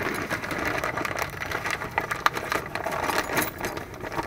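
Light metallic clicking and rattling, with one sharper click a little past halfway: small drum-brake self-adjuster parts being handled and turned by hand.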